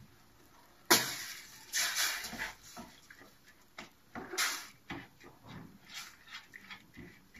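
Risotto being stirred with a spoon in a stainless-steel pan on the stove: a sharp clack of utensil on pan about a second in, then intermittent scraping and stirring sounds.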